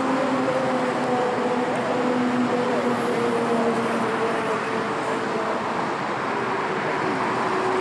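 Airbus A380 jet engines running at taxi power as the aircraft rolls by: a steady rumble with a held whine that drifts slowly lower in pitch.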